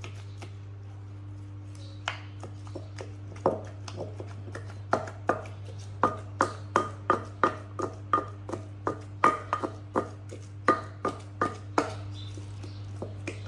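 Wooden pestle pounding food in a large clay mortar: dull repeated thuds, a few scattered at first, then a steady beat of about three strokes a second, over a steady low hum.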